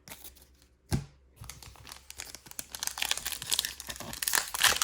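Foil booster pack wrapper crinkling and tearing as it is opened, getting louder toward the end, after a single low knock about a second in.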